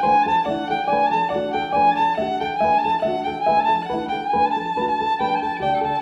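Viola played with the bow: a quick run of short notes in a repeating pattern, often with two or more notes sounding at once.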